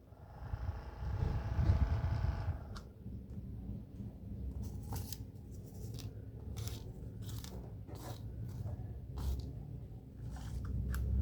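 A small electric motor whines steadily for about two seconds and then stops. A series of sharp clicks and scraping knocks follows, the sound of small parts being handled.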